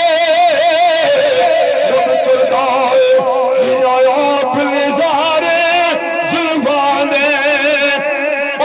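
A man singing a naat through a microphone, in a melismatic devotional style: long held notes with heavy vibrato that wind up and down.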